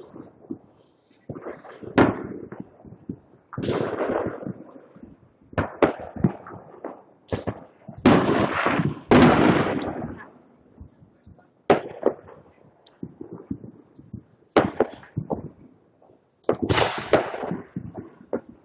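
Consumer fireworks going off: a string of sharp bangs and crackling bursts, with a long dense run of crackle about halfway through.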